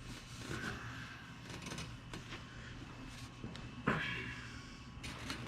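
Scattered light clicks and knocks of hand tools and plastic parts being handled while pop-riveting a plastic chin spoiler to a car bumper, with one sharper knock about four seconds in.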